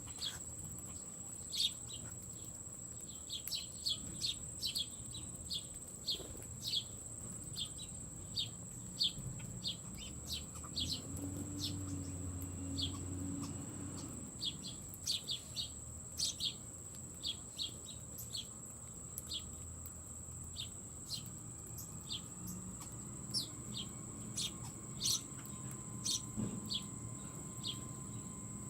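Small songbirds at a feeder chirping over and over: short, high, quick chirps, sometimes several a second, with a steady high-pitched whine underneath.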